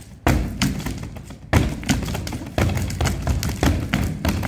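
Gloved punches landing on a Century free-standing punching bag: a run of sharp thuds, irregularly spaced, about two a second.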